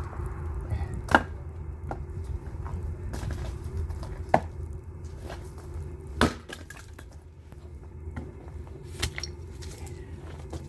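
Firewood being worked: four sharp wooden knocks, about a second in, midway, and near the end, over a steady low hum.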